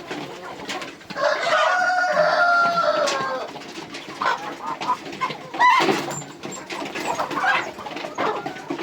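Kienyeji chickens clucking and calling, with a rooster crowing for about two seconds starting about a second in, then shorter calls.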